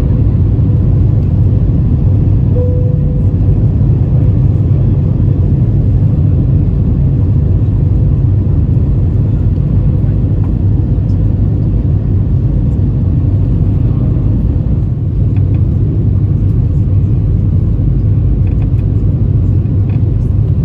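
Steady low rumble of an Airbus A320's engines and airflow heard inside the passenger cabin, with a faint constant hum over it.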